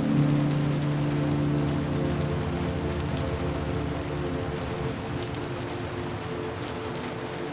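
Steady rain falling, an even hiss with fine ticks of individual drops. A low sustained drone comes in sharply at the start and fades over the next few seconds.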